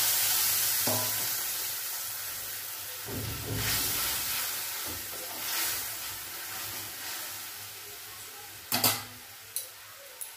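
Mango paste sizzling in hot oil with mustard seeds in an aluminium kadai, stirred with a spatula. The hiss is loudest at first and slowly dies down as the paste cooks, with a few sharp clicks of metal on the pan near the end.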